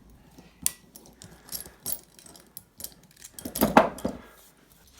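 Scattered small metal clicks and clinks as a key-made escape tool and steel Darby handcuffs are handled, with a louder metallic clatter about three and a half seconds in.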